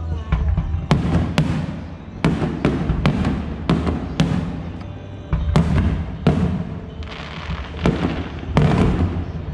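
Aerial firework shells bursting in irregular succession: a dozen or more sharp bangs, some close together, each with a brief echoing tail.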